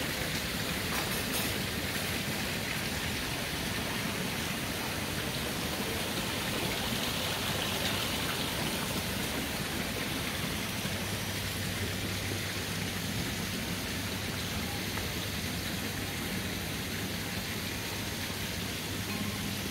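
Steady rain falling on the garden, an even hiss with no breaks.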